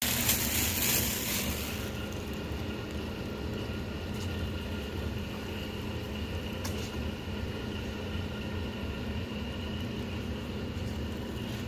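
Steady low mechanical hum with a faint high whine over it, from running machinery; a rush of hiss fills the first couple of seconds, and there are two faint clicks.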